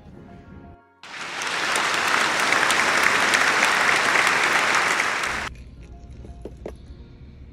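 Applause starting about a second in, loud and dense with many separate claps, cutting off suddenly after about four and a half seconds. Quiet background music comes before it.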